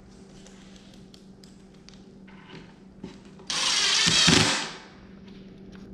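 Ridgid cordless drill driving a screw into the OSB sofa frame: one burst of the motor, about a second long, starting abruptly about three and a half seconds in and winding down, with a few faint handling clicks before it.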